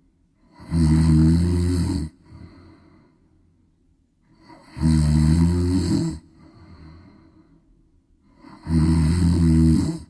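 Cat snoring: three loud snores about four seconds apart, each a buzzing breath lasting just over a second, with quiet breathing between.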